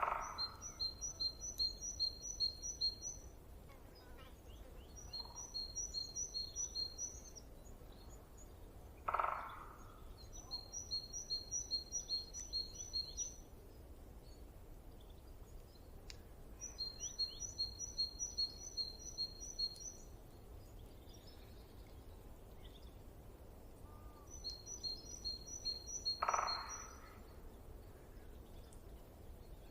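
A songbird singing five phrases of fast repeated chirps, each note pairing a higher and a lower pitch, about two to three seconds a phrase. Three short, lower and louder calls come at the start, about nine seconds in and near the end, over a steady low rumble of wind.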